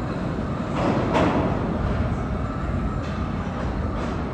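Vintage 1960s Redbird subway cars running along the track in an underground station, pulling away with a steady rumble of wheels on rail, louder for a moment about a second in.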